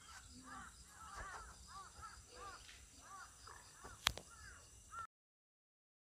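Crows cawing over and over, about two calls a second, with one sharp click about four seconds in. The sound cuts off abruptly near the end.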